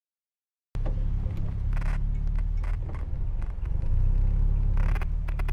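1951 Jaguar XK-120's 3.4-litre straight-six running with a steady low exhaust rumble, cutting in abruptly under a second in. There are a few short bumps and rustles on the microphone.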